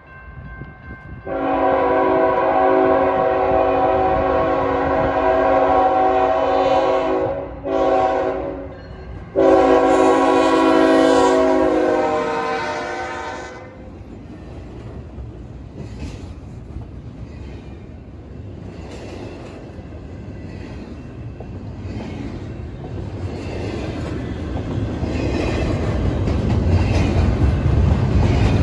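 A CSX freight locomotive's air horn sounds the grade-crossing warning: a long blast, a short one, then a final long blast, as the train approaches the crossing. The horn then stops, and the train passes close by: a steady rumble and clatter of steel wheels on the rails under double-stack container cars, growing louder near the end.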